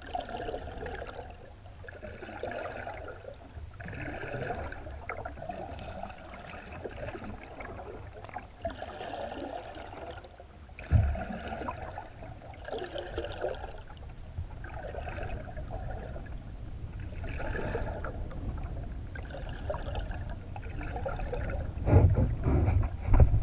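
Water heard from just under a moving kayak's hull: a steady low rumble with sloshing surges that come back about every one and a half to two seconds. A sharp thump about halfway through and louder, heavier rumbling near the end.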